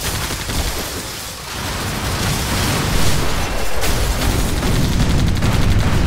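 Battle sound effect: dense gunfire over a continuous low rumble, with a rapid burst of machine-gun fire near the end.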